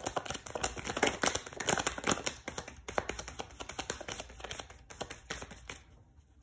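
A tarot deck being shuffled by hand: a dense, fast run of card clicks and flicks that stops shortly before the end.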